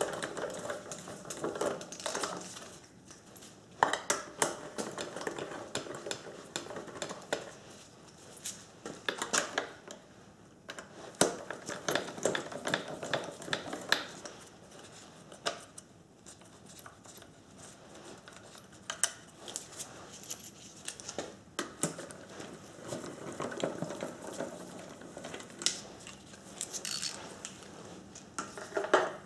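Hand socket ratchet clicking in repeated bursts as it undoes the bolts of a carburettor air-cleaner backplate, with light metal clinks from the tool and parts between bursts.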